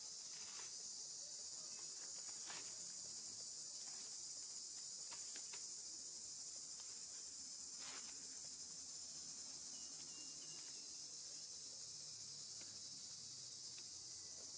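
A steady, high-pitched chorus of insects droning without a break, with a few faint clicks scattered through it.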